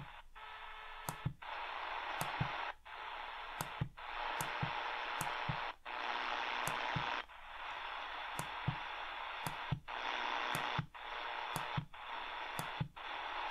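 Eton Grundig Executive Traveler III portable radio's speaker hissing with shortwave static, with no station heard. The hiss drops out for an instant about ten times, each time with a small click as a button press steps the tuning to another shortwave frequency or meter band.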